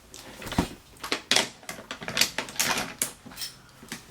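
Handling noise: a string of irregular clicks and knocks with some rustling between them.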